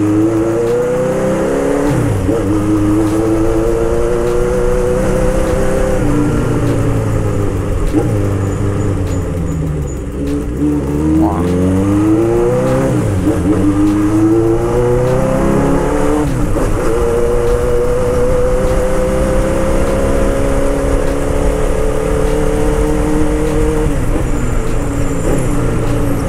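Honda CB750 Boldor's inline-four engine pulling hard up through the gears. Its pitch climbs, then drops at each shift. It backs off briefly about eight to ten seconds in, holds a long rising run, and eases off near the end.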